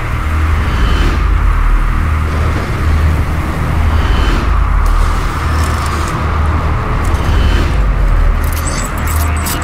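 A loud, dense drone from an experimental sound composition: a heavy low throb that swells and dips about once a second under a steady band of hiss. A cluster of crackling glitch clicks comes in near the end.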